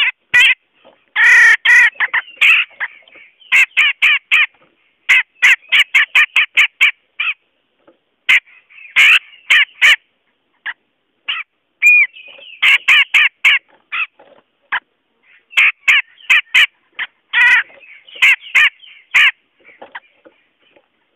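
Cucak jenggot, a crested white-throated bulbul, calling in runs of rapid, harsh chattering notes lasting a second or two each, with short pauses between the runs.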